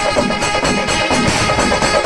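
Chenda melam, a Kerala temple percussion ensemble, playing a loud, dense, fast drum rhythm without a break.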